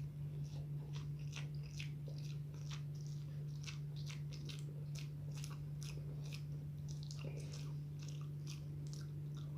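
Close-up chewing of soft food, eggplant balado and omelette, with quick wet mouth clicks several times a second. A steady low hum runs underneath.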